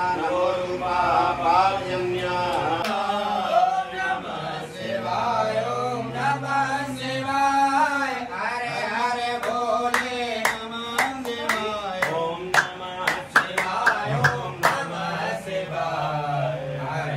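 Men chanting Sanskrit Vedic mantras for a Rudrabhishek in a sing-song recitation. A run of sharp clicks or taps cuts through about ten seconds in.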